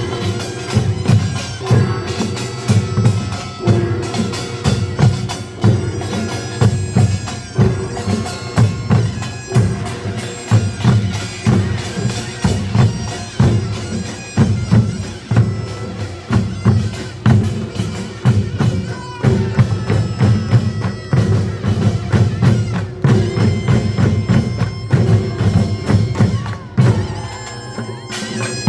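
Gyeongsang-province nongak farmers' band music: drums and small gongs beating a fast, driving rhythm while a taepyeongso (Korean shawm) plays a reedy, piercing melody over them.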